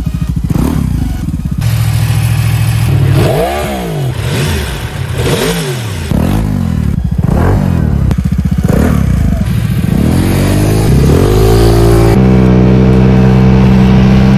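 Vespa GTS250ie scooter's single-cylinder engine under hard acceleration, its revs sweeping up and down several times before settling into a steady drone for the last couple of seconds.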